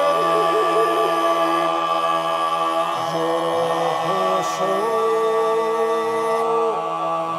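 Male a cappella choir singing a Mongolian long song (urtiin duu): low voices hold a steady drone under a steady high tone while a solo voice carries a slow, heavily ornamented melody. About five seconds in, the melody settles on a long held note.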